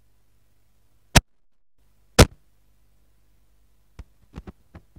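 Two sharp clicks about a second apart, the low hum briefly dropping out after the first, then a quick run of fainter clicks near the end: buttons and controls being worked on a USB sound card mixer.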